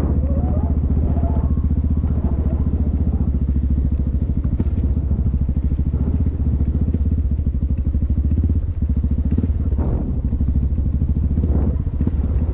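Yamaha XT225's single-cylinder four-stroke engine running steadily under way, with a fast, even firing pulse. A few brief knocks sound over it.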